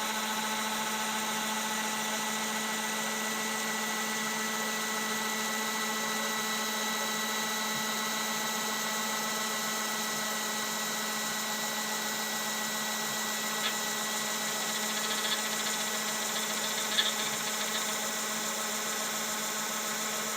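Orbital sander running steadily at high speed while it is moved slowly across a small piece of wood, an even motor hum with a few faint knocks in the second half.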